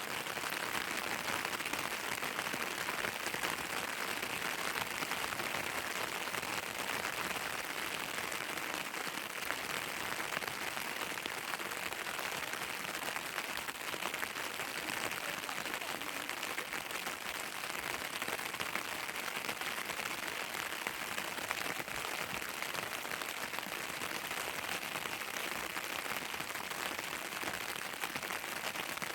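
Steady rain falling, a dense even patter that doesn't let up.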